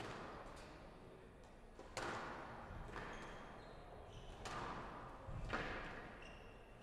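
Squash ball being struck by rackets and smacking off the court walls during a rally, several sharp hits a second or two apart, each ringing on in the hall. Shoes squeak briefly on the wooden floor between the shots.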